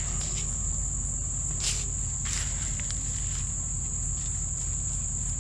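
Steady, high-pitched shrilling of an insect chorus, with a brief rustle of leaves about a second and a half in.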